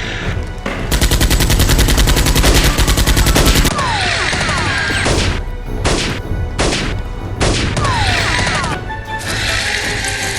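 Gunfire sound effects: a long rapid machine-gun burst lasting about three seconds, then several separate single shots, over background music.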